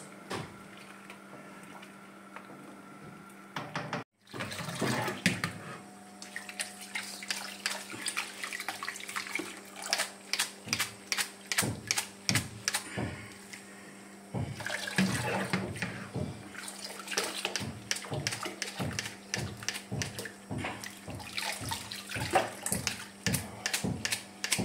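A utensil tapping quickly and irregularly, several knocks a second, along with water sounds, as halušky dough is cut and knocked into a pot of water. A faint steady hum comes before the tapping begins.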